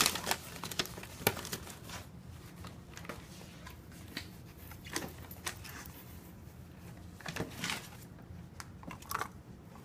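A dog rummaging in a cardboard box, packaging rustling and crinkling in faint, scattered bursts with a few sharp clicks.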